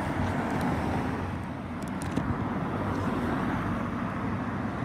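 Road traffic: cars driving past close by, with steady engine and tyre noise.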